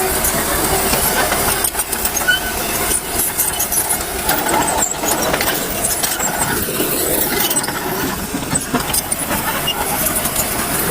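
Dump truck running while unloading rock, with a continual rough scraping and clatter of many small knocks.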